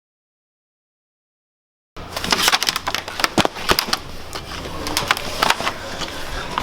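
Dead silence for about two seconds, then a dense run of clicks, knocks and rustling from packs of diapers being shifted and stacked, over a steady low hum.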